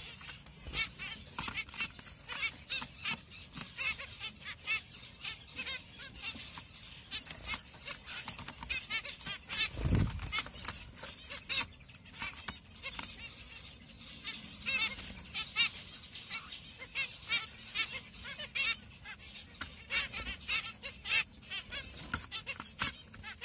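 A cage of zebra finches giving many short, rapid calls, mixed with wing flutters and small clicks as they hop between perches. There is one low thump about ten seconds in.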